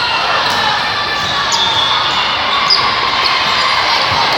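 Indoor volleyball rally in a large, echoing gym: a few short high squeaks of shoes on the court floor and the knock of the ball being played, over a steady din of the hall.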